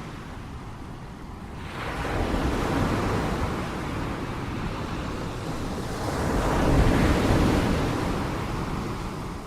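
Ocean waves breaking on a shore. After a short lull, one wave crashes about two seconds in and a louder one swells and breaks around seven seconds, then washes out.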